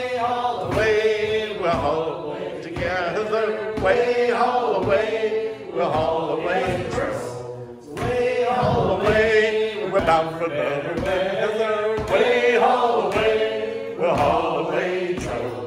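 Sea shanty sung a cappella, with no instruments, in long sung phrases and short breaks between them.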